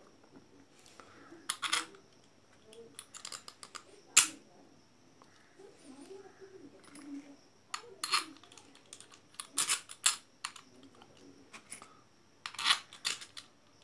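Irregular sharp metallic clicks and clinks of a small single-phase induction motor being reassembled by hand: a screwdriver and screws tapping against the motor's metal end cover and housing. The loudest click comes about four seconds in, with quick clusters of clicks later on.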